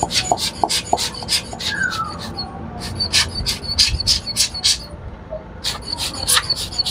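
Hand-squeezed rubber air blower bulb puffing air in quick short hisses, about five a second, blowing dust off a laptop motherboard and its cooling fan. The puffs come in three runs, with pauses about two and a half seconds in and about five seconds in.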